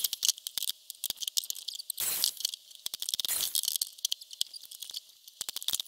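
Insects chirping outdoors: a quiet, irregular high-pitched ticking and clicking.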